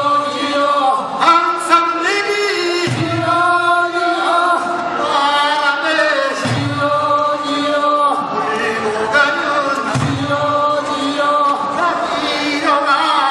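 Men's chorus chanting a Korean fishermen's rowing work song, the rowers' voices holding long sung notes. A low beat comes back about every three and a half seconds.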